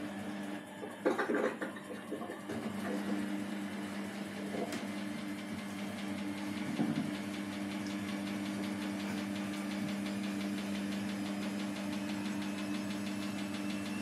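Samsung WW80J5555FWEU front-loading washing machine in its wash stage: the drum motor hums steadily while water sloshes in the drum. About a second in, the hum drops out briefly under louder splashing and then picks up again, with a couple of soft knocks later on.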